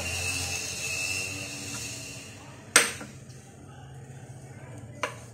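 A plate set down on the tiled countertop with one sharp clack about halfway through, then a lighter tap near the end, with soft handling noise in between.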